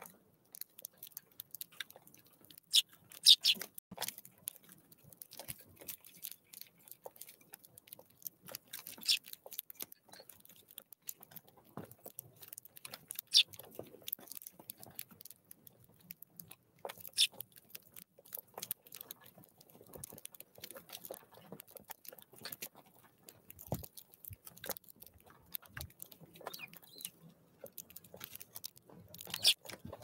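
Eurasian tree sparrows pecking and cracking seed on a wooden feeder close to the microphone: a constant patter of small taps and cracks, with a few louder sharp ones.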